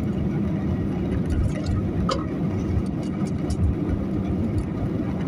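Steady low rumble of an airliner's engines during takeoff, with a faint click about two seconds in.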